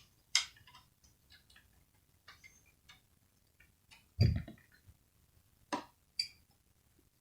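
Small sharp clicks and taps of handling a laptop's coin-cell CMOS battery and its plastic compartment while fitting the battery, with a louder, duller knock about four seconds in.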